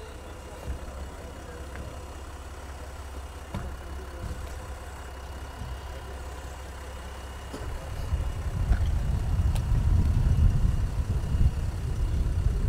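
Range Rover engine running low and steady at idle, then a heavier, rougher low rumble from about two-thirds of the way through as the car creeps off.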